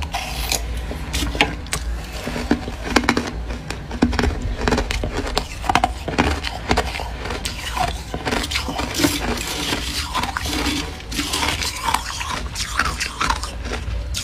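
Close-miked crunching and chewing of soft freezer frost: a dense, irregular run of crackles over a steady low hum.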